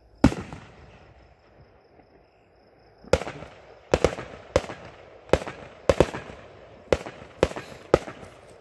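Aerial fireworks going off: one loud bang just after the start, then, from about three seconds in, a rapid string of sharp bangs, about two a second.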